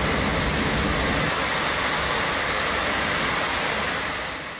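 Loud steady rush of air inside an Airbus A321 cabin in flight, from the large hole blown in the fuselage by the on-board explosion. It fades out near the end.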